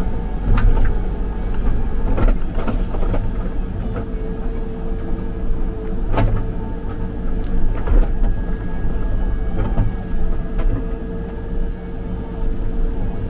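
Backhoe's diesel engine running steadily under a steady whine, with several sharp knocks and clanks a second or few apart as holes are filled back in.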